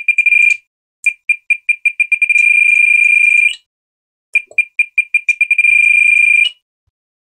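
Spektrum DX6 radio transmitter beeping as its trims are held and stepped. Each run is a string of high beeps that come faster and faster, then merge into a steady tone lasting one to two seconds. It happens three times, with a faint click about half a second after the second run ends.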